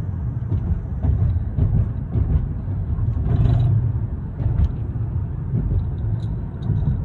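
Low, steady rumble of road and engine noise inside a car's cabin, with a few faint clicks.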